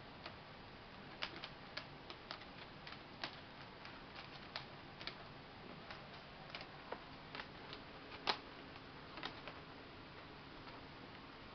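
Irregular light clicks and taps, a couple of dozen scattered over several seconds with no rhythm, the loudest about eight seconds in: playing kittens' paws and claws, and the ribbon they bat, tapping on a hardwood floor.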